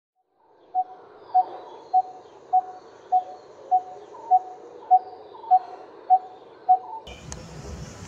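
Coppersmith barbet calling: a single metallic 'tuk' note repeated evenly at one steady pitch, eleven times at a little under two a second. About seven seconds in, the calls give way abruptly to steady background noise.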